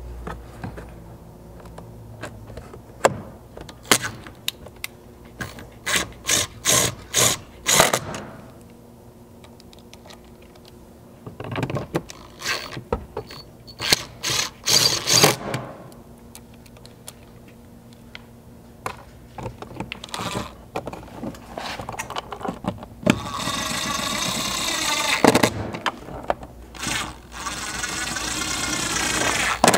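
Cordless driver with a 7mm socket running small screws into a plastic door panel, in short trigger bursts. Near the end it runs in two longer spells of a couple of seconds each.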